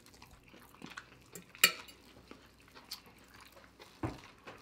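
Metal fork clicking against a ceramic bowl in scattered clicks, the sharpest about a second and a half in, with a low thump near the end.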